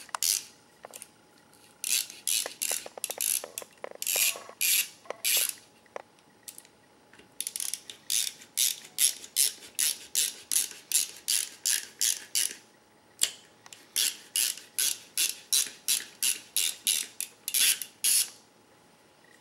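Ratcheting handle of a Nexxt Spine Inertia bone tap clicking about twice a second, in runs with short pauses, as the tap is turned down a pedicle of a synthetic (sawbones) spine model to cut the screw path.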